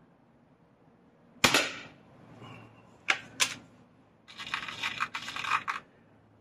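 A Weihrauch HW99S .177 break-barrel spring-piston air rifle firing once, a sharp report with a short ringing decay, which is the loudest sound. Two sharp clicks follow about a second and a half later, then a longer run of rattling, scraping noise.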